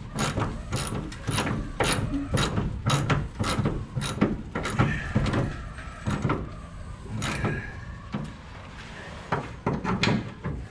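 Hand ratchet wrench being worked in quick strokes, about two clicking strokes a second, while the gas tank is being bolted in. The strokes thin out after about four seconds into a few scattered clicks.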